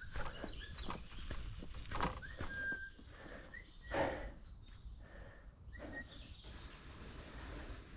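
Dry leaf litter crackling under the mountain bikes as they roll to a stop on the path, with a louder knock about four seconds in. Small birds chirp briefly in between.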